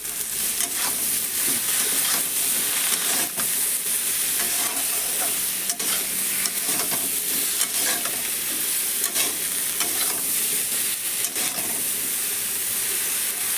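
Eggplant and prawns frying in oil in a kadai, sizzling steadily, with a metal spatula scraping and knocking against the pan as they are stirred.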